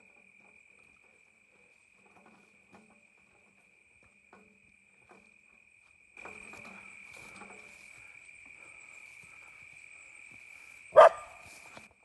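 Insects trilling in one steady, high-pitched drone that grows louder about halfway through. There are a few faint ticks before that, and one short, loud sound near the end.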